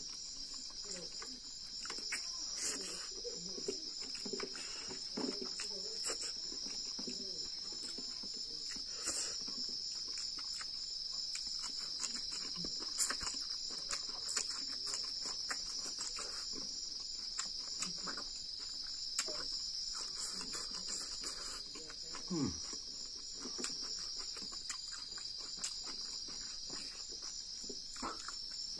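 A steady, high chorus of night insects, with close mouth sounds of someone eating fish by hand over it: many short wet clicks and smacks from chewing and sucking on fingers and bones.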